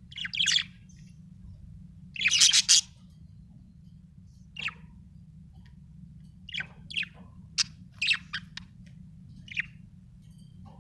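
Budgerigar chirping in short, high calls with gaps between them. The loudest call comes about two seconds in, and a quicker run of chirps follows in the second half. A steady low hum runs underneath.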